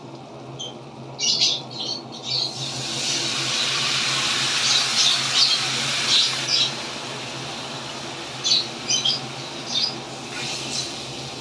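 Ginger, garlic and green chillies sizzling in butter in a wok. The sizzle swells into a loud, steady hiss with sharp crackles as a dark sauce hits the hot pan, then eases. Fresh spitting comes near the end as water is poured in.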